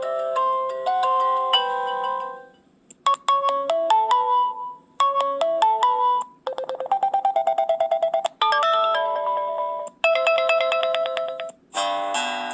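Preloaded ringtones of an LG Nexus 5 phone played one after another: a string of short electronic melodies, each a second or two long with brief gaps between them, one made of rapid repeated notes, the last one starting near the end with a plucked, guitar-like sound.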